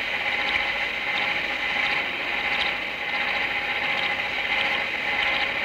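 Metal-turning lathe running: a steady mechanical whirr and hiss with a constant hum tone and faint occasional ticks.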